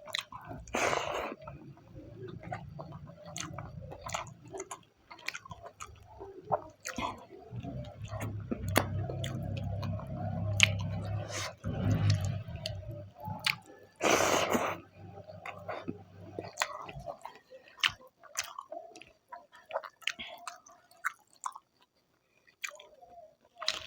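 Close-miked chewing and wet mouth sounds of a person eating a meal of rice, dal and goat tripe, with frequent smacks and clicks. There are two louder breathy bursts, about a second in and around fourteen seconds in.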